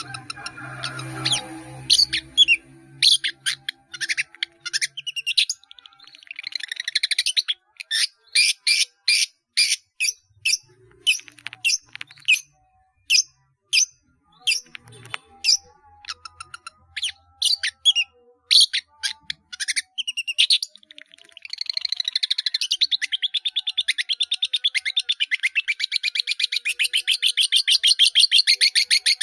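Long-tailed shrike singing a busy song packed with mimicked calls: many short, sharp, high notes, then a long, fast chattering run of repeated notes over the last third.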